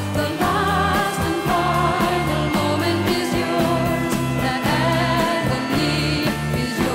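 Background music: a song with singing over a steady beat and bass line.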